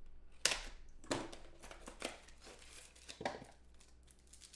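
Clear plastic wrapping crinkling and tearing as trading cards are handled, in several short sharp crackles.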